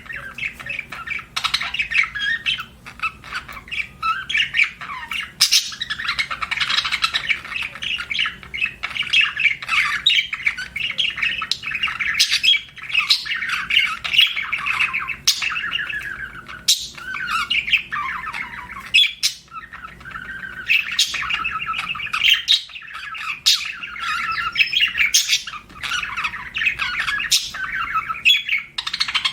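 Budgerigars chattering and warbling without pause, a busy run of rapid chirps and squawky notes with sharp clicks throughout.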